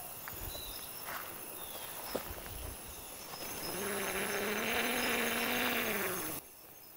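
Water running through a small pipe: at first a faint hiss under chirping insects, then from about halfway a louder rush with a low hum. It stops abruptly near the end.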